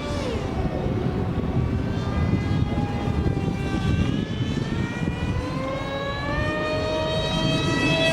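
Homemade RC jet's electric motor and propeller whining in flight, its pitch rising and falling with throttle. The pitch drops sharply as the plane passes close by, just after the start and again at the end.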